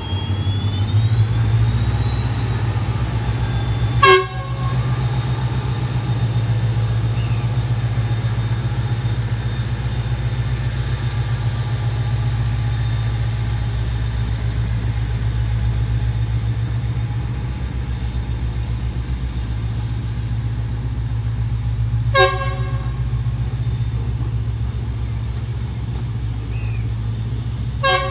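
Coaches of a train rolling past as the rake pulls out: a steady low rumble with a thin high whine over it. Three short sharp bangs break it, about four seconds in, about 22 seconds in and again at the end.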